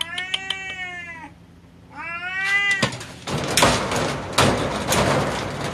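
A cat meowing twice, two long drawn-out meows, followed about three seconds in by louder rustling and knocking noises.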